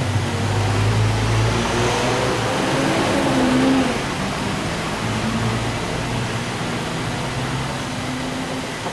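An engine running steadily, its pitch and level rising briefly a few seconds in and then settling back.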